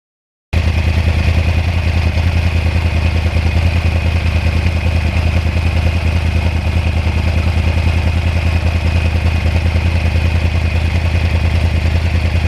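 2009 Yamaha R1's crossplane inline-four engine running at a steady, unchanging speed, with a strong low, even pulse. It starts suddenly about half a second in and runs at one level, with no revving.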